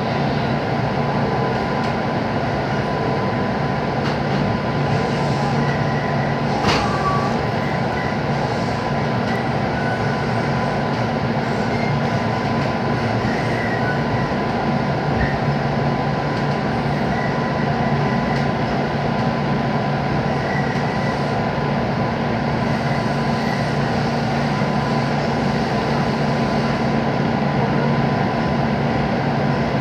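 JR West 221 series electric train running at reduced speed, heard from inside the car as a steady rumble and hum, with a single sharp click about seven seconds in.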